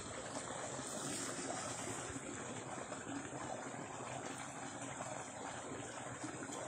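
Steady trickle of shallow water running along a small stone-walled irrigation channel.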